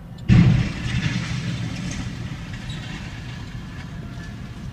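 Freight train striking a semi-truck trailer on a level crossing: one sudden, very loud crash about a third of a second in, then a heavy rumble of the passing train and wreckage that slowly eases off.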